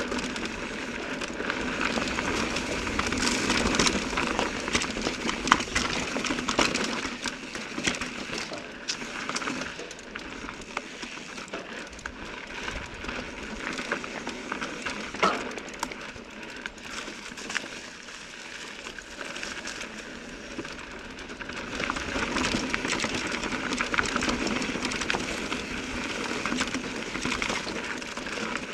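Mountain bike being ridden over a rocky trail: a steady rolling, rattling noise with many sharp knocks. It grows louder for a few seconds near the start and again near the end.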